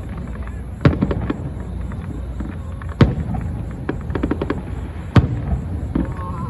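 Fireworks going off: three loud bangs about two seconds apart, with quicker runs of smaller pops and crackles between them over a steady low rumble.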